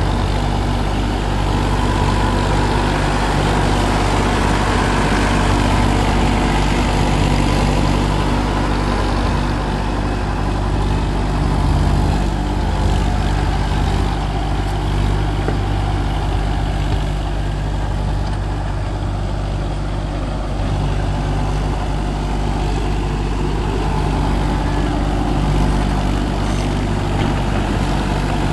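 Swaraj 963 tractor's diesel engine running steadily under load, driving a 10-foot double-rotor rotavator that churns through the soil.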